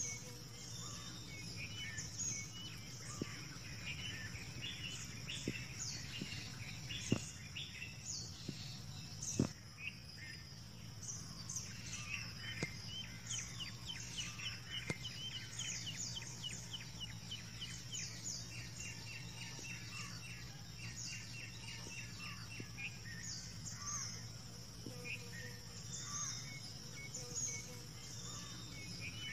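Birds chirping and calling over a steady high-pitched insect drone, with a fast run of repeated notes through the middle. A low steady rumble lies beneath, and two sharp knocks come about 7 and 9 seconds in.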